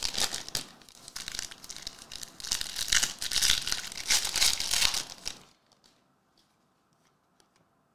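Foil wrapper of a Topps Pristine trading-card pack crinkling as it is handled and torn open by hand, a dense crackle that stops about five and a half seconds in.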